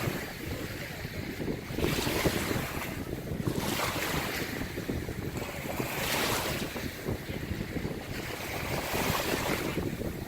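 Strong wind buffeting the microphone in a steady low rumble, with lake waves washing in, a hissing swell about every two seconds.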